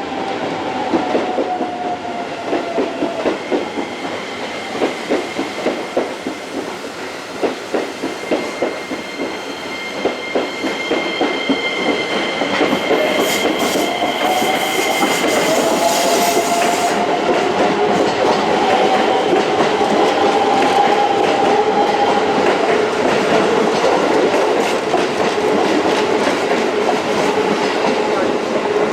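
Keisei Line electric train moving alongside the platform, its wheels clacking over rail joints, with the whine of its traction motors rising in pitch in the second half and a short hiss around the middle.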